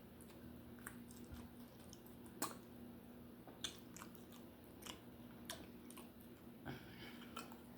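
A person chewing food close to the microphone: faint, soft mouth clicks and small crunches, about one a second.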